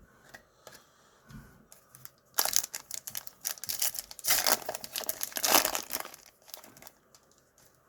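Wrapper of a Panini Donruss Optic baseball card pack crinkling and being torn open, a run of noisy rustles lasting about four seconds in the middle.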